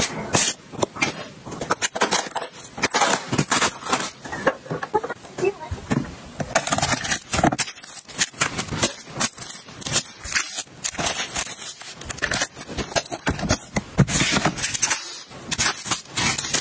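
Plastic film wrapping on packs of facial tissue crinkling and crackling as hands tear it open and handle it, with soft paper rustling as tissues are pulled from a soft pack. The crackling is dense and irregular, with brief lulls.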